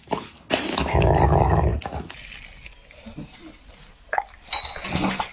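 A dog eating broccoli: chewing and mouth noises. A louder stretch starts about half a second in and lasts just over a second, followed by quieter scattered clicks.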